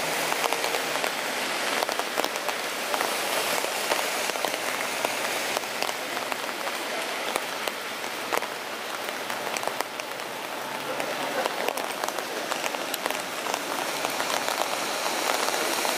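Steady rain falling on a wet paved street: an even hiss dotted with the tick of individual drops.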